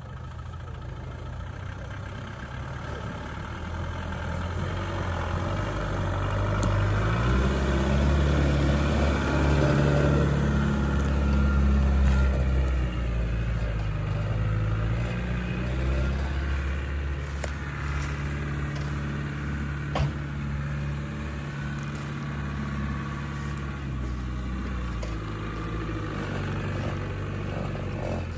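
Land Rover Discovery engine running at low revs as the vehicle crawls off-road, the revs and loudness rising about a quarter of the way in and easing back about halfway through, then holding steady. A single sharp knock about two-thirds of the way in.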